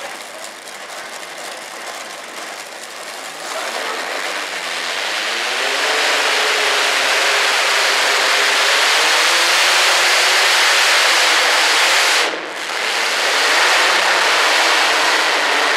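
Modified-class pulling tractor's engine at full throttle, dragging the weight sled down an indoor track. It revs up about four seconds in and then runs loud and steady, dipping briefly about twelve seconds in.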